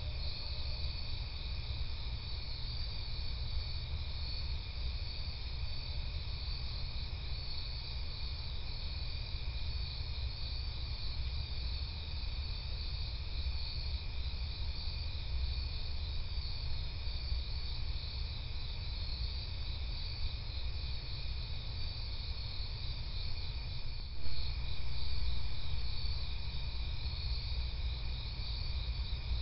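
Night insects, crickets, trilling steadily in a continuous high pulsing chorus over a low steady hum. A short louder noise comes about three quarters of the way through.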